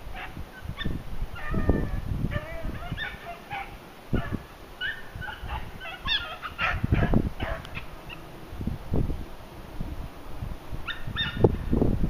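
Beagles baying in short, repeated yelps, several voices overlapping, as they run a rabbit's track. Low rumbles of wind buffet the microphone.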